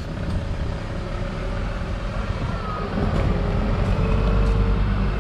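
Diesel engine of a MAN truck-based motorhome running as it drives slowly and manoeuvres, a steady low rumble that grows louder about three seconds in.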